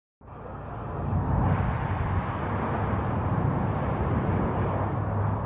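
A video game's flamethrower sound effect: a steady rushing roar with a low rumble. It cuts in just after the start and swells over the first second.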